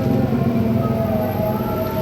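A bus's Basuri telolet horn sounding held musical notes that shift in pitch about a second in, over the low rumble of the bus's engine.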